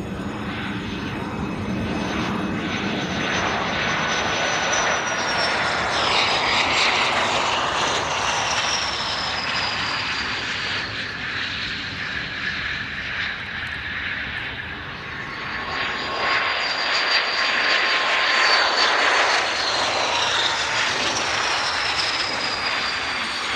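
Hawker Hunter jets' turbojet engines making low passes: a rushing roar with a high whine that falls in pitch as each jet goes by. There are two passes, the second and louder one about three-quarters of the way through.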